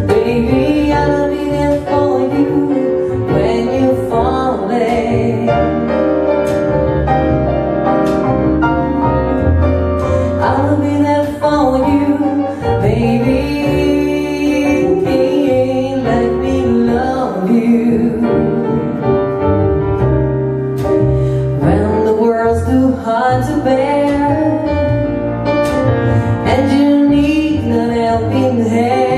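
Live soul performance: a woman singing with grand piano and upright double bass accompaniment, without drums.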